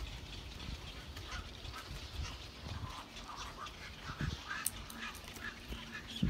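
Short, repeated animal calls that come thicker in the second half, over low thumps and rustling.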